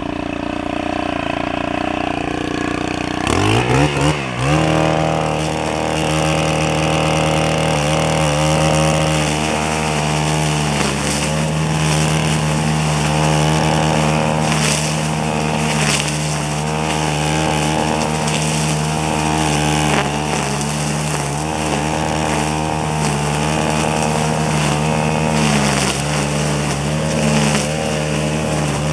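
Gas-powered string trimmer idling, then revving up about three seconds in and running at high throttle with small dips while it cuts grass and weeds.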